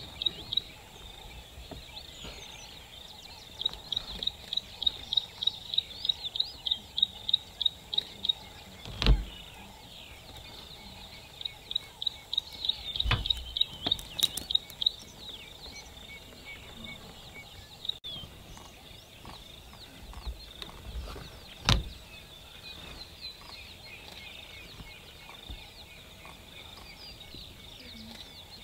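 A bird calling in long runs of rapid, evenly spaced high notes, about four or five a second, twice, over faint steady bush background. A few sharp thumps stand out, the loudest about nine seconds in.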